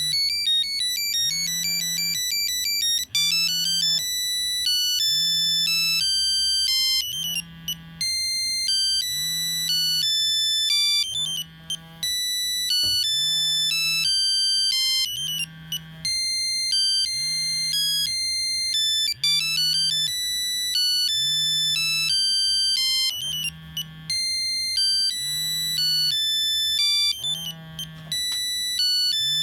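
Nokia 3395 mobile phone playing a monophonic ringtone: a melody of single beeping notes stepping in pitch, with short rests between phrases. A low buzz pulses under it about every second and a half.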